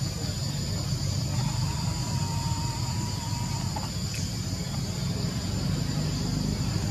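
Steady high-pitched drone of insects over a constant low rumble. A faint, thin, steady tone sounds for about two seconds in the middle.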